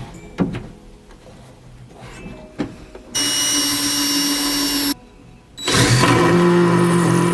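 Power drill driving screws in two steady runs of about two seconds each, the second a little higher in pitch, after a couple of sharp knocks.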